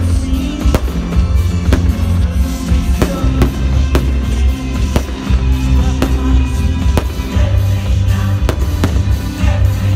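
Loud music with a heavy, steady bass, with sharp bangs and crackles of aerial fireworks bursting through it many times.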